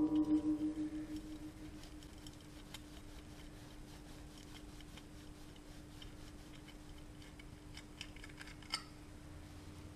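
A metal tool rings sharply as it is knocked, dying away over about a second and a half. Then come light, irregular clicks of a hand ratchet being worked on a stud extractor tool, with one sharper click near the end.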